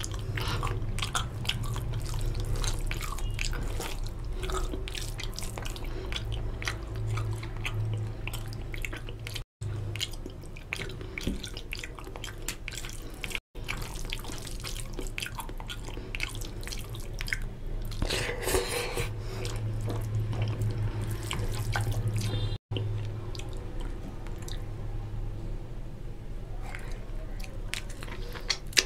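Close-miked wet eating sounds made by hand: sucking at a mutton leg bone, fingers squelching rice into oily curry gravy, and mouthfuls being chewed, as a stream of small wet clicks and smacks over a low steady hum. The sound cuts out for an instant three times.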